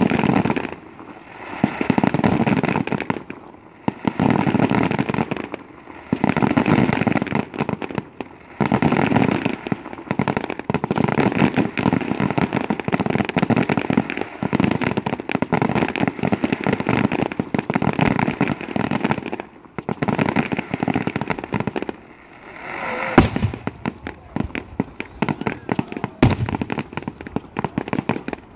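Fireworks display going off in rapid crackling salvos, each lasting a second or two with short gaps between. Near the end come a couple of sharper, louder single bangs.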